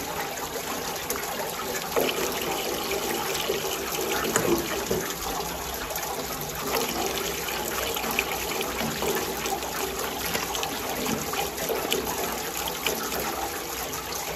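Steady rush of running water, with a few light knocks about two and four and a half seconds in.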